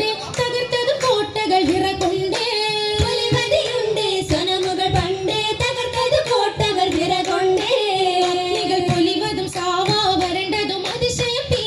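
Women's voices singing a Mappila oppana song in a lilting melody, with the dancers' handclaps falling in among the singing.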